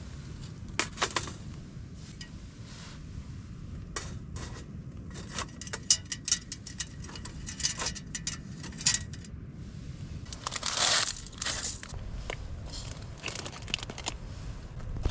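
Plastic food packets crinkled and torn open, with scattered clicks and clinks of camping cookware, including a longer crinkling tear about two-thirds through, over a low steady rumble.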